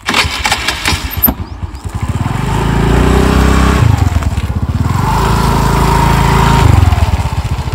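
TVS Jupiter scooter's single-cylinder engine starting up, then running and revving up twice as the scooter moves off.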